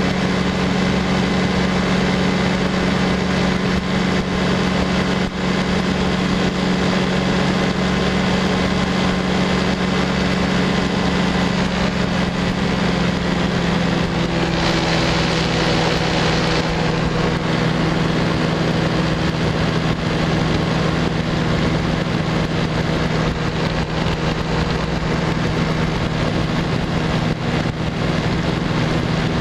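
Light aircraft engine running steadily in flight, mixed with wind rush on the onboard microphone. About halfway through, the engine note settles a little lower as the plane begins descending toward the airstrip, and there is a brief gust of louder wind noise.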